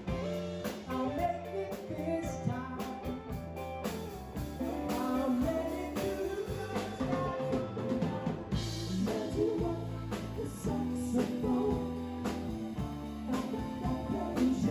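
Background music with guitar and drums, and a singing voice.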